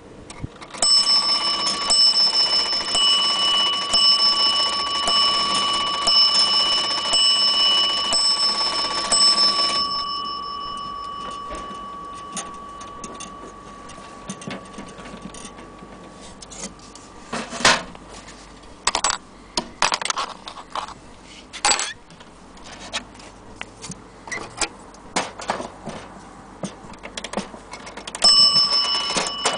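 Antique New Haven wall clock striking the hour: a run of ringing metallic strikes about a second apart, the last one left to die away slowly. Clicks and knocks from the clock hands being turned follow, then one more strike near the end.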